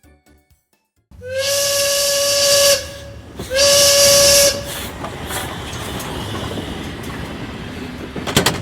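A whistle blows two long, loud blasts over heavy hissing, then a steady rumbling noise follows, with a short clatter near the end.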